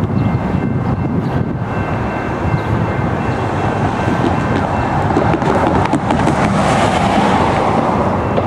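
Freight train passing: a steady, loud rumble of wheels on rail, with no horn.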